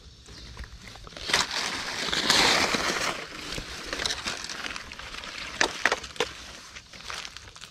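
Dry forest litter and twigs crackling and snapping as they are disturbed. There is a dense burst of crackling for about two seconds, then a few separate sharp snaps about three-quarters of the way through.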